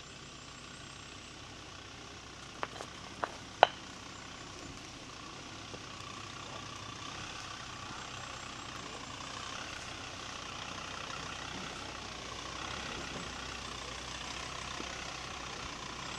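Jeep Grand Cherokee crawling over a rocky forest track, its engine running low and steady and growing slowly louder as it comes closer. Three sharp knocks come about three seconds in, the last one the loudest.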